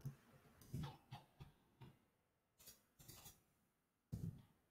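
Near silence broken by a few faint, scattered computer clicks and key taps, about eight small ticks spread across the few seconds.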